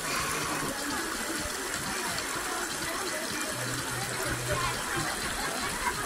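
Lake water washing and lapping against the rocky shore in a steady wash of noise, with faint voices in the background.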